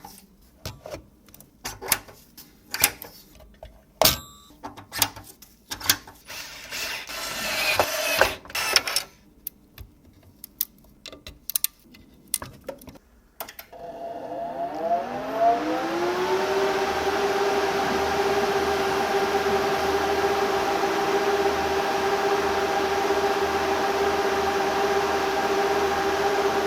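A series of sharp clicks and knocks, then about halfway through the water-cooled server's cooling fans spin up. Their whir rises in pitch over a couple of seconds and settles into a steady hum with an airy rush.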